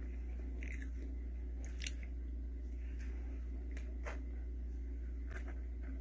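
Close-up mouth sounds of someone eating cheesecake: soft wet chewing with a few short sharp clicks, over a steady low hum.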